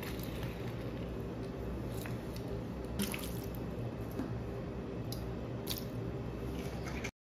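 Liquid dripping onto raw fish pieces in a stainless steel bowl as lemon juice and white vinegar are added, with a few sharp light clicks and taps over a steady low hum. The sound cuts off abruptly near the end.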